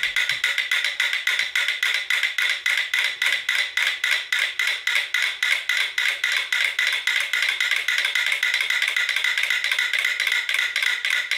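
Three clockwork metronomes on a shared platform balanced on aluminium cans, ticking in a rapid, even rhythm. They are beating in time together, pulled into sync by the rocking platform they stand on.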